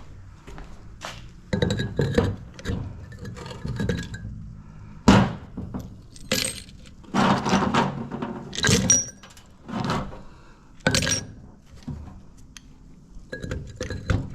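Small pieces of scrap brass clattering and clinking together as they are handled, in irregular bursts of hits, some with a short metallic ring.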